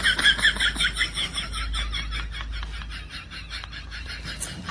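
A small animal's high chirping, in a fast even run of about seven chirps a second that slowly fades away.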